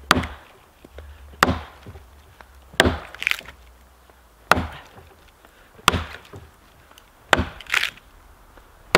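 Boy's axe chopping into a dense oak log, six strokes about a second and a half apart, cutting a notch to buck the log.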